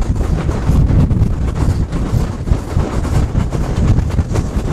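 Wind buffeting the microphone: a loud, uneven rumble with no steady rhythm.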